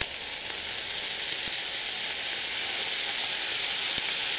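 Baby potatoes frying in butter in a nonstick pan, giving a steady sizzle just after lime juice is squeezed over them.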